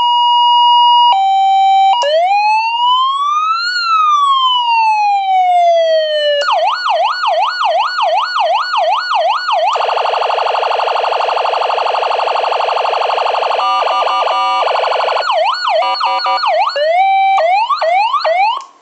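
CJB 150 A electronic police-escort siren running through its tones: a two-tone hi-lo, then a slow wail rising and falling once, a fast yelp, a very rapid warble, choppy mixed tones, and short rising whoops near the end.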